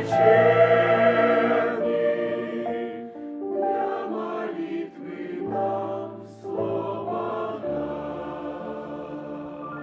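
Choir singing a hymn in slow, held chords, growing steadily softer toward the close.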